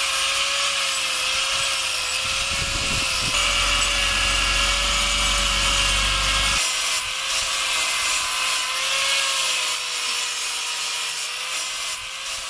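Chainsaw running steadily while carving into wood, the chain's cutting hiss over a steady, slightly wavering engine tone, with a low rumble added from about three to six and a half seconds in.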